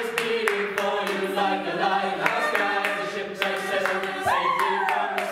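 Mixed a cappella group singing in close harmony over a held low bass note, with a steady beat about twice a second. About four seconds in, a high sliding note falls in pitch.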